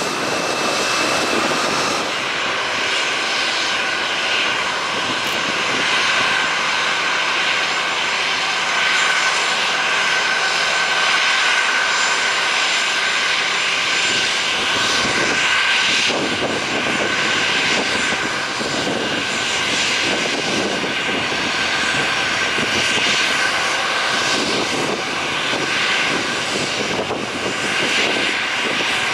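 Jet airliner engines running steadily, a loud whine with a high tone held over the engine noise.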